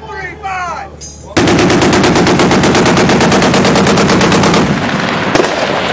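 A long burst of machine-gun fire starts suddenly about a second and a half in, running at about ten shots a second for some three seconds, with echo. It then tails off, with one more sharp shot near the end.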